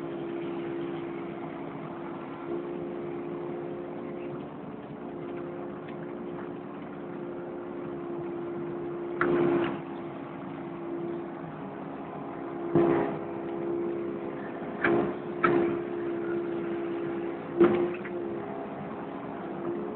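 Kubota KX080 excavator's diesel engine running steadily as the machine digs, with about five sharp clunks from the machine in the second half.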